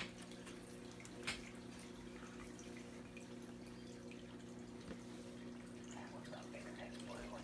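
Faint aquarium water trickling and dripping, over a steady low hum, with one sharp click about a second in.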